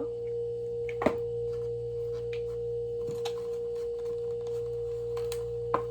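A steady, unchanging mid-pitched hum, with a sharp click about a second in and a smaller one near the end.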